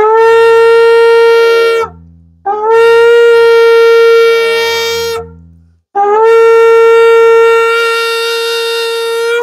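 A shofar blown in three long, steady blasts with short breaks between them. Each blast starts with a quick upward slide into one held note, and the last is the longest.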